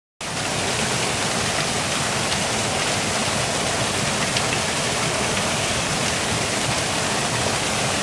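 Small waterfall with a thin, late-dry-season flow, splashing down a narrow rock chute into a pool: a steady rushing of water.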